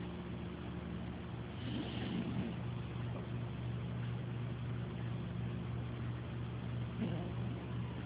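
Slow snoring over a steady low drone, with a louder snore about two seconds in and another about seven seconds in.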